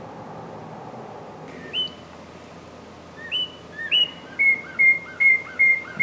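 Northern cardinal singing: a few clear slurred whistles starting about two seconds in, then a quick run of repeated whistled notes, about two or three a second, growing louder toward the end.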